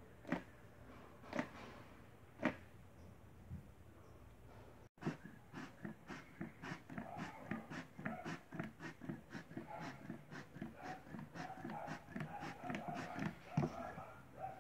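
Rubber bellows-horn bulb squeezed by hand, pushing air through a homemade alcohol-heated fog machine. First come single puffs about once a second over a low hum. After a cut comes rapid pumping, about four puffs a second with a faint tone in them, and one sharper click near the end.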